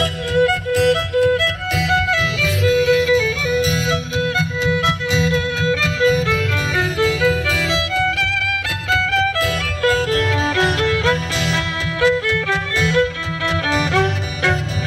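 Violin bowed in a quick run of short notes stepping up and down, played through a microphone and small amplifier.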